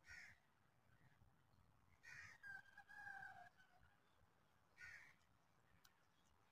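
Faint scratching and squeaking of a felt-tip calligraphy pen drawn across notebook paper in a few short strokes, the middle one, about two seconds in, drawn out into a thin squeak.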